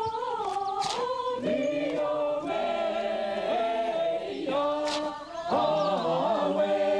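Choral singing: several voices holding long notes together, shifting to new notes every second or so.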